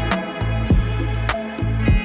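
Background music with a steady drum beat and pitched instrument lines.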